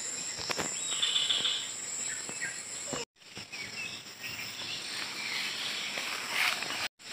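Insects keeping up a steady high-pitched drone, with a short chirp about a second in. The sound cuts out briefly twice, about three seconds in and near the end.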